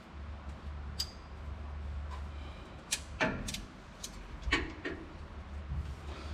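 Sharp metallic clicks and knocks from a socket wrench being fitted to and worked on a truck's steel oil drain plug, a few separate strikes about a second or less apart, over a low steady hum.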